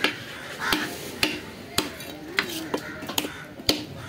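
Heavy fish-cutting knife striking down onto a wooden log chopping block: about seven sharp knocks, irregular, roughly half a second apart.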